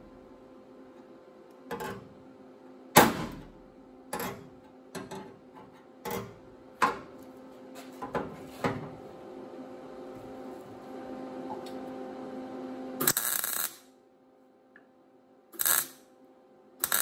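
Body hammer striking a sheet-steel rust-repair patch panel against a dolly to knock the sunken panel up: scattered sharp blows through the first nine seconds, one much louder about three seconds in, with a steady hum underneath. Then brief crackling bursts of MIG tack welding, about thirteen seconds in and twice more near the end.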